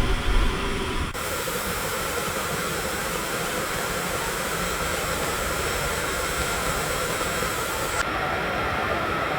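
Steady hissing room-noise bed of a passport control booth ambience, with a low rumble in the first second. A bright upper layer of hiss comes in about a second in and cuts off abruptly about eight seconds in.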